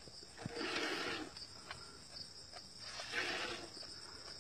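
A cow being milked by hand into a steel pot, with a soft rushing sound about every two seconds, over steady cricket chirping.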